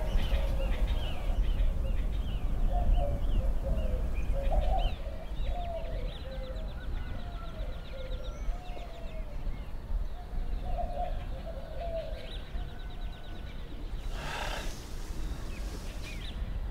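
Morning birdsong: many birds chirping, warbling and trilling, over a steady low rumble. About fourteen seconds in there is a short burst of rustling noise.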